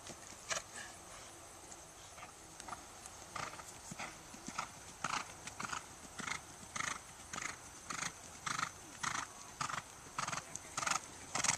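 A horse cantering on sand arena footing, its strides landing as a regular beat about twice a second. The beat is faint for the first few seconds and grows louder and sharper in the second half.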